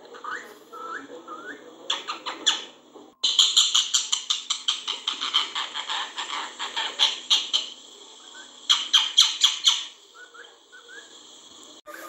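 Rose-ringed parakeet calling: a few short rising chirps, then from about three seconds in a fast run of sharp repeated notes, about six a second, which stops, starts again briefly near nine seconds, and gives way to soft chirps near the end.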